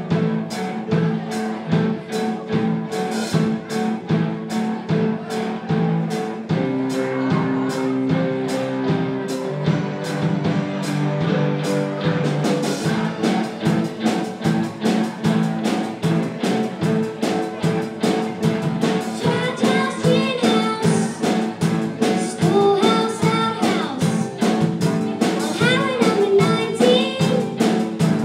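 A live rock band plays: a drum kit keeps a steady beat under electric guitar. Singing into microphones comes in at about two-thirds of the way through.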